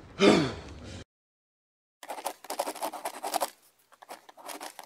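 A voice trailing off, then after a second of dead silence, two runs of rapid scratchy clicks and rustles.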